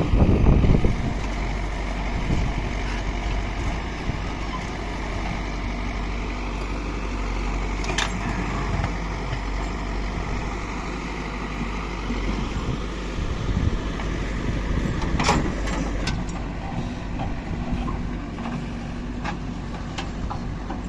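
Heavy diesel engine of a tractor or backhoe loader running steadily, with a louder surge right at the start and a couple of sharp knocks, about 8 and 15 seconds in.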